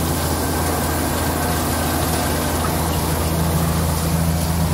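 Tractor-driven Maan thresher threshing soybeans, running steadily: a constant low engine hum under the even rush of the threshing drum and blower.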